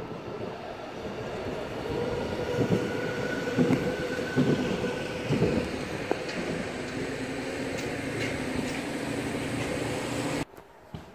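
Zentralbahn electric train running past, a steady rumble with a motor whine, and a series of wheel clunks about a second apart. The sound cuts off suddenly near the end.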